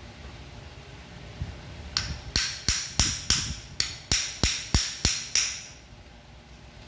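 A chiropractic adjusting hammer tapping in a quick series: about eleven sharp taps, roughly three a second, starting about two seconds in. Each tap has a short, high ring.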